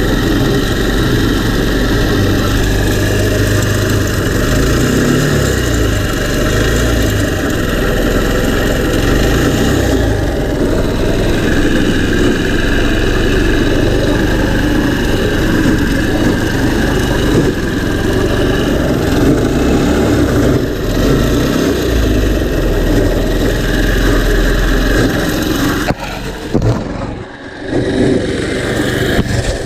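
Go-kart's small engine running, its revs rising and falling as the kart is driven, with a brief drop in level near the end.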